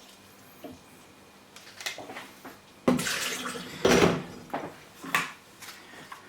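Water poured in a few short surges into a soup-maker jug packed with chopped vegetables, topping it up to the fill line.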